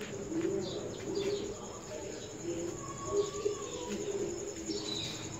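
Birds singing: short chirps and quick falling whistles, with low repeated cooing, over a steady high insect trill.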